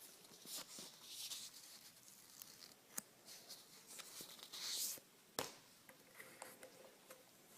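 Faint handling of toy packaging: crinkling and rustling in two short bursts, with scattered small clicks and two sharper clicks, the louder one about five seconds in.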